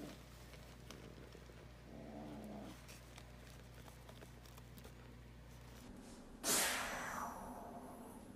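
Kitten giving two low, drawn-out yowls, one at the start and one about two seconds in. Near the end, a sudden loud rush of noise cuts in and falls in pitch as it fades over about a second.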